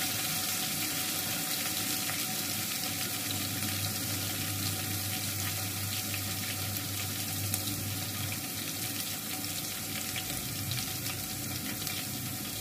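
Sliced onions and ginger-garlic paste sizzling steadily in hot oil in an aluminium pot. The paste is being fried until its raw taste is cooked out.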